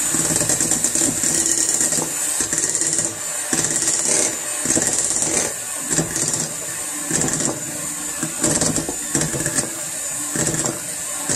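Electric hand mixer running steadily at speed, its twin beaters churning thick cheesecake batter in a glass bowl, with a constant motor whine and brief knocks and clicks every second or so.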